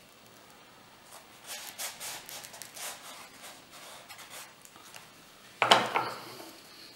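Fingers rubbing blue masking tape down onto a model sailplane wing in a series of short scratchy strokes, then one loud rip near the end as the tape is pulled up from the surface.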